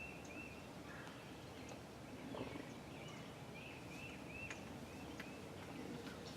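Turkey yelping: short, arched notes repeated in loose runs of two to four, with a few faint clicks.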